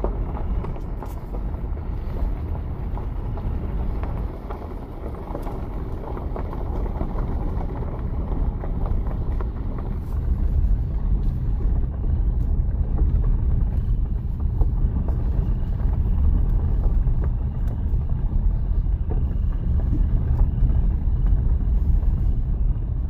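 Car cabin noise while driving on a dirt road: a steady low rumble of tyres and engine that grows louder about ten seconds in.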